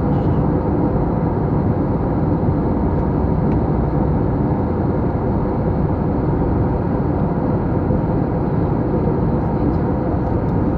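Steady cabin noise inside an Airbus A321 jet airliner in flight: an even rumble of engines and rushing air, with no change in level.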